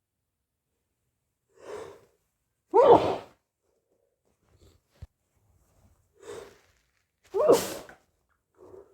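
A person sneezing twice, about four and a half seconds apart, each sneeze preceded by a sharp breath in. Another breath in starts near the end, with a faint click between the sneezes.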